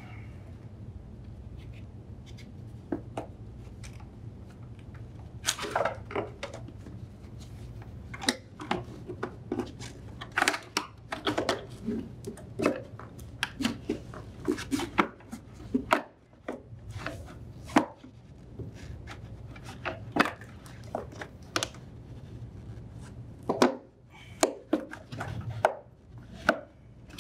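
Irregular clicks, taps and knocks of hard plastic as the condenser fan shroud assembly is worked into the refrigerator's lower compartment and set into its retaining tabs.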